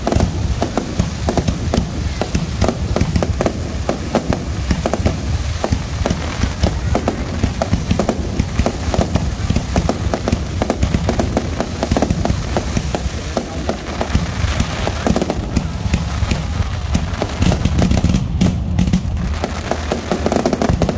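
Fireworks display: aerial shells going up and bursting in a rapid, unbroken barrage of bangs and crackling pops.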